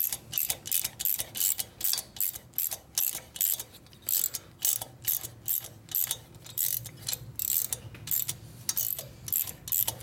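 Hand socket ratchet clicking as it is swung back and forth, running a bolt down into a Harley 45ci WL flathead cylinder head, about three click bursts a second.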